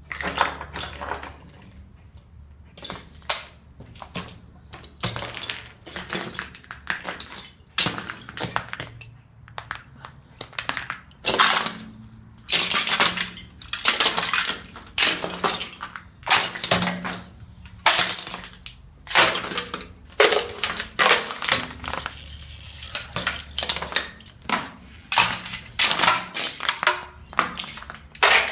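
Thin sheet ice over shallow water being broken up: a long, irregular run of sharp cracks and crunches, with loose shards clinking.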